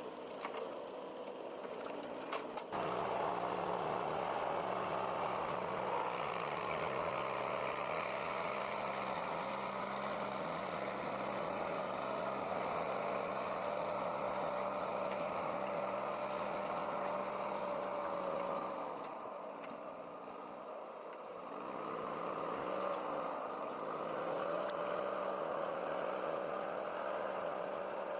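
Engine of a logging vehicle running steadily. It gets louder about three seconds in and eases off for a couple of seconds past the middle before picking up again.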